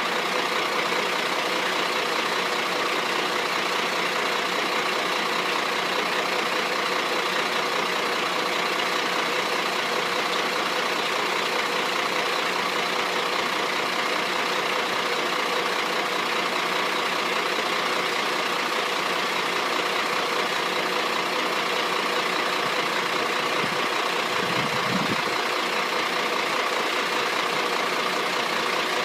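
Crane truck's engine running steadily, a constant hum with several steady tones that holds at one level throughout.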